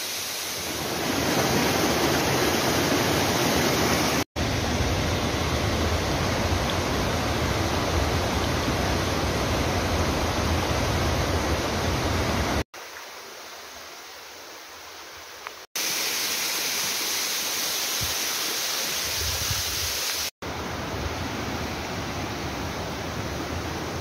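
Steady rushing of a waterfall and its stream, broken by several abrupt cuts, with a quieter stretch a little past the middle.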